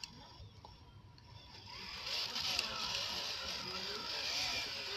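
Electric motor and gearbox of a homemade 1:10 scale RC Jeep crawler whining as it creeps over a log. It is quiet for about the first two seconds, then the whine rises and holds as the truck climbs.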